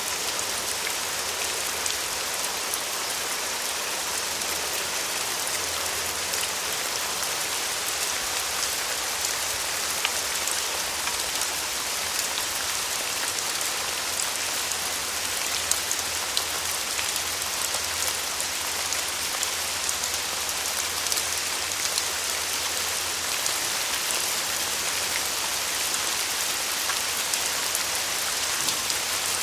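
Steady rain falling, a continuous hiss with many small drop ticks scattered through it.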